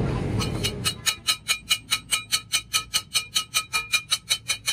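Hand hammer tapping rapidly on the steel cylinder of a hydraulic jack, about five light strikes a second, each ringing metallically. A low rumble of street traffic fades out in the first second before the tapping starts.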